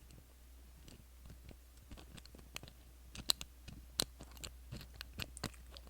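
Light, irregular clicks and scrapes of a lock pick working the pins inside a doorknob's pin-tumbler lock, with a few sharper clicks in the second half.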